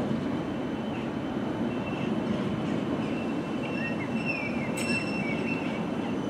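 A CAF Urbos low-floor tram of the Belgian Coast Tram rolls in toward the stop with a steady rumble of wheels on rail. In the middle come brief wheel squeals and chirps that slide in pitch, and a sharp click comes just before five seconds in.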